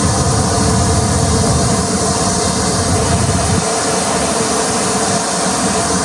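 A train running close by on the main line: a loud, steady rolling rumble with a steady hum over it. The low rumble falls away about three and a half seconds in while the hum and hiss carry on.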